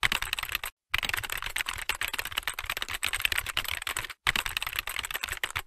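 Typing sound effect: a fast run of keyboard key clicks, broken twice by short pauses, then cutting off suddenly.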